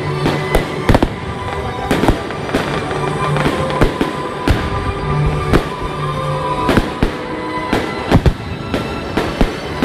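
A fireworks display going off: a quick, irregular run of sharp bangs and crackles, with music playing steadily underneath.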